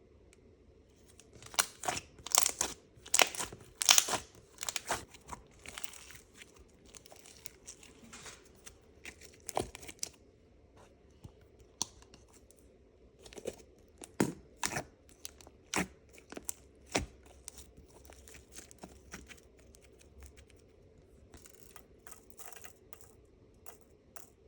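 Thick slime being stretched and pressed by hand, crackling and popping with sharp snaps, many close together in the first few seconds and more scattered after that.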